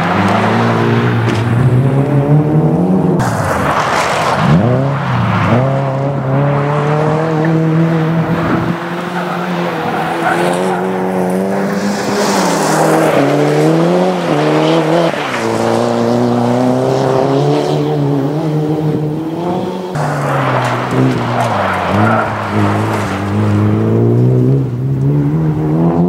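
Rally car engines revving hard through a loose gravel corner, the pitch climbing and dropping over and over with throttle lifts and gear changes. Tyres slide and spray gravel as the cars drift through.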